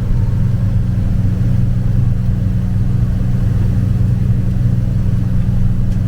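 Engine running steadily at a constant speed, a loud low hum with no change in pitch.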